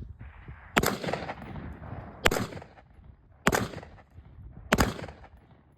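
Four single gunshots from a firearm, evenly spaced about a second and a quarter apart, each a sharp crack with a short ringing tail.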